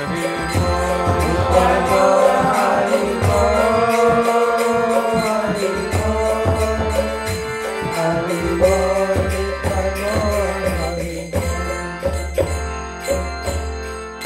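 Kirtan: voices chanting a mantra over a steady held drone, with small hand cymbals clinking in a regular rhythm and a drum beating underneath.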